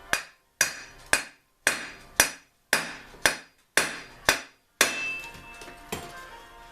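Hammer striking a metal engine part in a steady run of about two blows a second, each with a short metallic ring, stopping after about five seconds with one last blow a second later.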